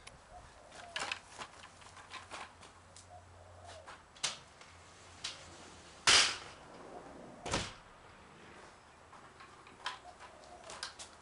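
A few scattered knocks and clicks with quiet between them. The two loudest come about six and seven and a half seconds in.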